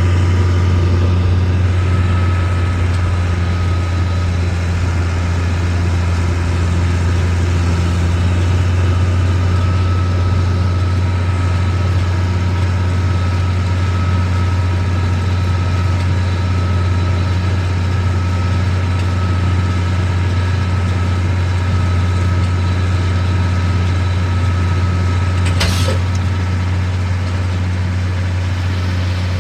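Tractor engine running steadily at a constant speed, with one sharp click near the end.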